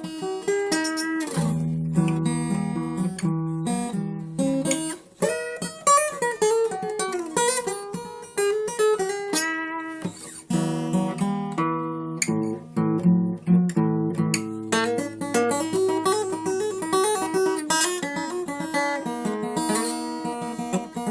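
Solo acoustic guitar playing a lively instrumental piece: quick plucked notes and strummed chords, with a few notes sliding down in pitch about six seconds in.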